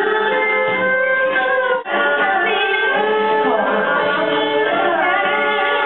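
Traditional Vietnamese music accompanying a water puppet show: singing with plucked string instruments, with a brief break about two seconds in.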